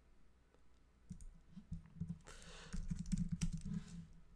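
Computer keyboard typing: a string of uneven key clicks, thickening near the end, as a terminal command is edited. A short hiss sounds about halfway through.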